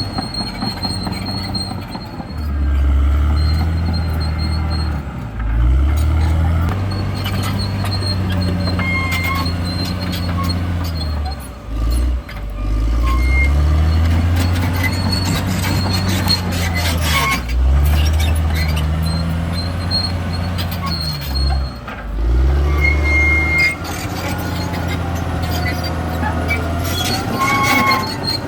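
CAT D6R XL crawler bulldozer's diesel engine working under load, its note rising and falling again and again, dropping sharply four times as the machine pushes and reverses. A few brief high squeals of metal rubbing sound over it.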